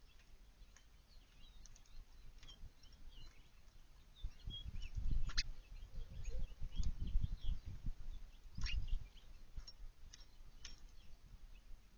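Small backyard birds giving short, high chirps, with scattered sharp clicks and taps. Low rumbling bursts in the middle are the loudest sound.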